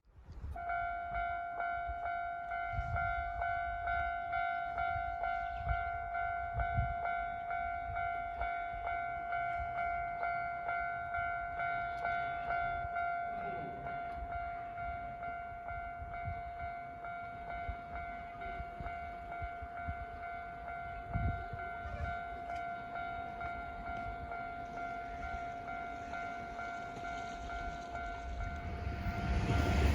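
Electronic warning bell of a Japanese railway level crossing, ringing in a steady, evenly repeating clang. Near the end an approaching train's rumble rises quickly and grows loud.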